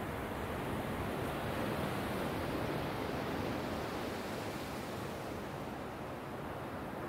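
Small ocean waves breaking and washing up a sandy beach: a steady surf hiss that swells a little about two seconds in, then eases.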